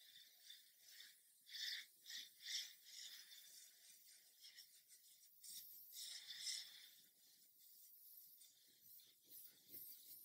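Airbrush spraying a light mist of thin clear tint paint, a faint airy hiss in short trigger-pulled bursts: three close together about a second and a half in, then a longer one around six seconds in.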